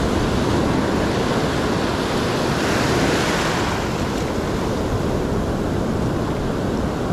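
Ocean surf breaking and washing up the beach, with wind buffeting the microphone. One wave breaks louder and brighter about three seconds in.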